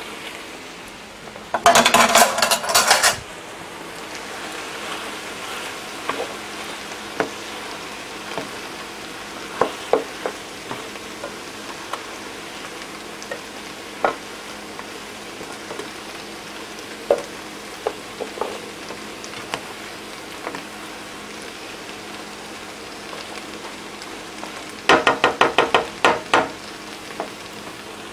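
A spoon stirring oxtail and tripe in a square pan over a steady sizzle, with scattered clinks of the spoon against the pan. There are two bursts of rapid clattering, about two seconds in and near the end.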